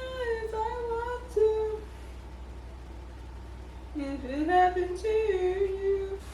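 A woman humming a tune in two short phrases of about two seconds each, with a pause of about two seconds between them; the second phrase starts low and slides up before holding a note.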